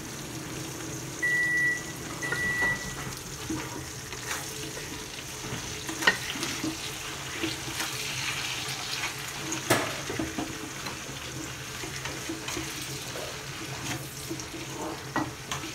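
Soy and oyster sauce mixture simmering in an aluminium pot: a steady bubbling sizzle with scattered small pops, a few sharper clicks, the loudest about six and ten seconds in. Two short high tones sound about a second in, over a steady low hum.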